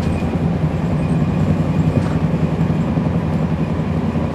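Interior sound aboard a 2011 NABI 40-SFW transit bus: its Cummins ISL9 inline-six diesel engine running steadily with a low hum, the ZF Ecolife automatic transmission barely audible.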